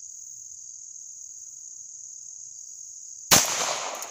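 A steady high insect trill, like crickets, runs throughout. About three seconds in, a single .22 LR pistol shot cracks out, with its echo dying away over the next half second, fired at a fly on the target.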